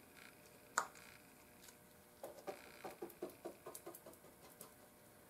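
Faint, wet dabbing of a resin-soaked paintbrush on fiberglass cloth. There is one sharp click about a second in, then from about two seconds in a quick run of soft dabs, about four a second, that stops near the end.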